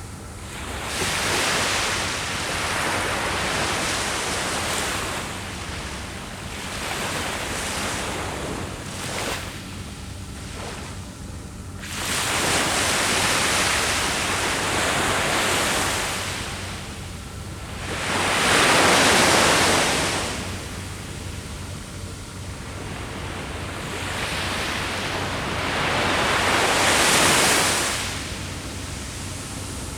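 Sea waves breaking on the shore, coming in about five surges a few seconds apart, the loudest about two-thirds of the way through.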